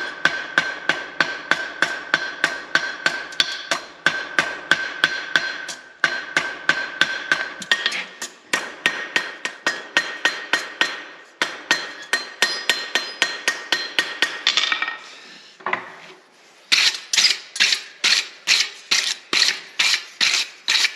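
Rounding hammer striking hot 1/4-inch steel rod on an anvil, drawing out the end of the rod: a steady run of about three ringing blows a second. There is a short break about three-quarters of the way through, then the blows resume.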